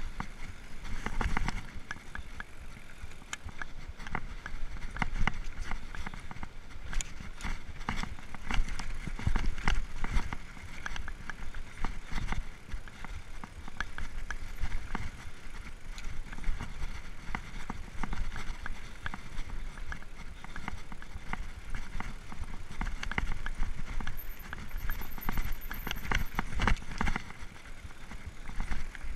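Mountain bike ridden fast down a dirt forest trail: tyres rumbling over the ground, with constant rattling and irregular sharp knocks from the bike as it hits roots and stones.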